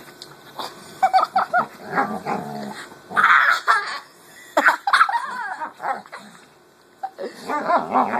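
A dog growling and barking during rough play-wrestling, in several bursts with short pauses.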